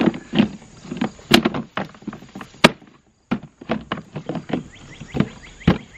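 Hard plastic dog-bath tub being pressed down onto its stand: a string of sharp, irregular knocks and clicks as the plastic bumps the frame and its clips snap into place.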